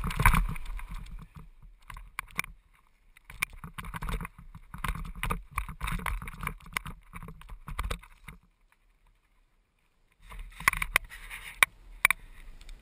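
Mountain bike rattling over a rough dirt trail at speed, with many sharp clicks and knocks from the bike and wind rushing on the microphone. The sound cuts out completely for about two seconds about two-thirds of the way through, then the rattling resumes.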